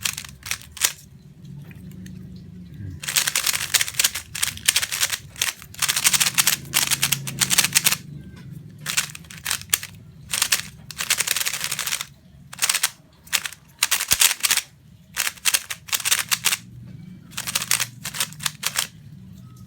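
Meilong 3x3 plastic speedcube being turned quickly by hand: bursts of rapid clicking layer turns, with short pauses between runs of moves.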